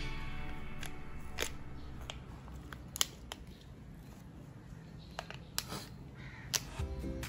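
Foil seal being picked at and peeled off a plastic Kinder Joy egg half: scattered short crinkles and sharp crackles. Background music fades out about a second in and comes back near the end.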